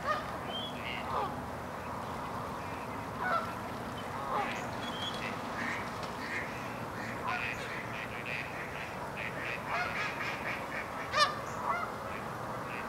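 A large flock of geese honking, with ducks quacking among them: many scattered calls overlapping, the loudest about eleven seconds in.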